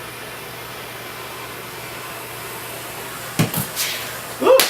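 A steady fan-like whir with a low hum under it. A couple of short knocks come about three and a half seconds in, and a brief rising vocal sound comes near the end.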